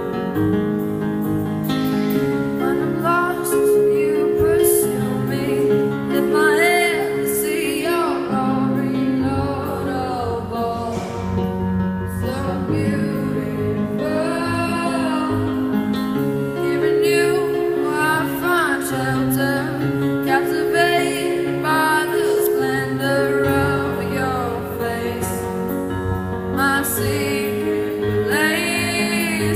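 A young woman singing a slow song with vibrato, accompanying herself on an electronic keyboard with sustained chords. The keyboard plays alone for the first couple of seconds before the voice comes in.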